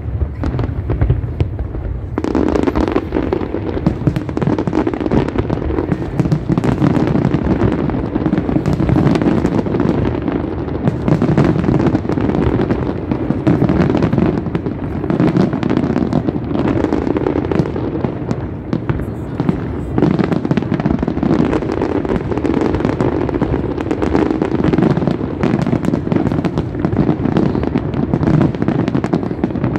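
Aerial fireworks display: a dense, continuous barrage of bursting shells and crackle that grows heavier about two seconds in.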